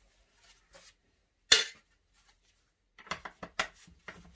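Metal hand tools being handled on a workbench: one sharp clink about a third of the way in, then a quick run of lighter clinks and knocks near the end.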